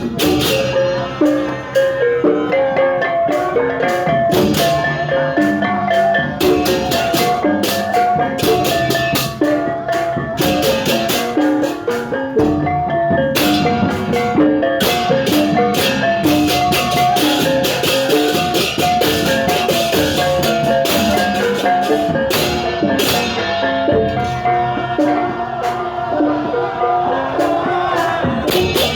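Music with rapid, repeated notes on tuned metal percussion over drums, at a steady fast rhythm throughout.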